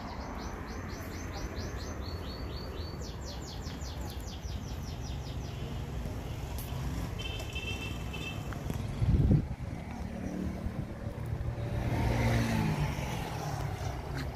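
A bird sings a fast run of repeated high chirps for about the first five seconds over a steady low traffic rumble. A brief thump comes a little past the middle, and a vehicle's engine rumbles louder as it passes toward the end.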